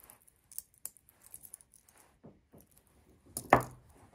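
Light metallic clicks and rustling as hands handle a watch and its strap, with one loud knock about three and a half seconds in.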